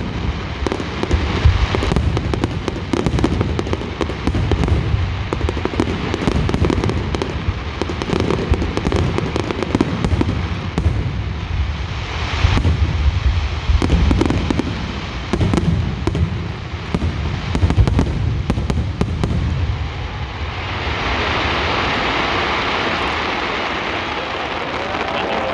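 Fireworks display: a rapid, continuous barrage of bangs and deep booms. About 20 seconds in, the bangs give way to a steady hissing rush.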